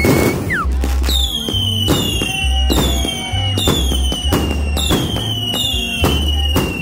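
'Wild Things' firework cake firing a rapid volley, about two shots a second, after a loud bang at the start. Each shot is a sharp pop followed by a whistle that falls in pitch.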